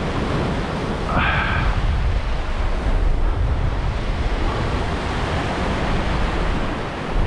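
Ocean surf washing and breaking against rocks, with wind rumbling on the microphone.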